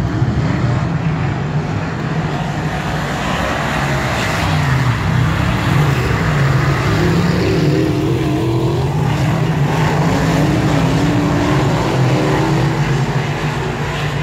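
Pack of dirt modified race cars with V8 engines running at racing speed. Several engine notes overlap and rise and fall as the cars pass close by and go through the turns.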